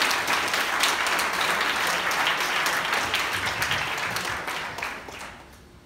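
A room full of people applauding, dense clapping that thins out and dies away about five seconds in.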